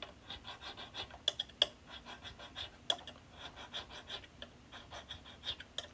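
A triangular fret-edge file scraping along the ends of an electric guitar's frets in quick short strokes, about four a second, with a few sharper clicks, deburring and rounding over the sharp fret edges.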